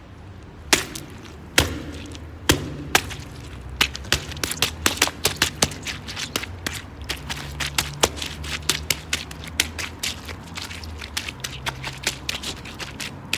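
Sneakers stomping on small oranges and crushing them: a few sharp impacts about a second apart, then from about four seconds in a fast, steady run of short cracks and snaps as the fruit is mashed into pulp. A low steady hum runs underneath.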